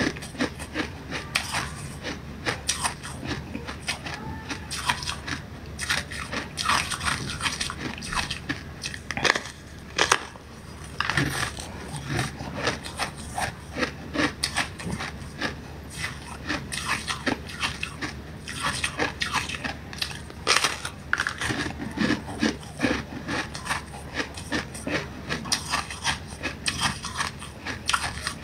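Biting and chewing a thin frozen sheet of purple ice held to the mouth: irregular sharp crunches and crackles, bite after bite, with short pauses between.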